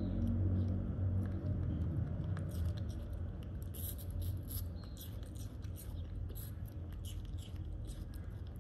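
Small, crisp clicks and ticks of a baby monkey nibbling and fingering small pieces of food, coming thickly from a few seconds in, over a low steady hum.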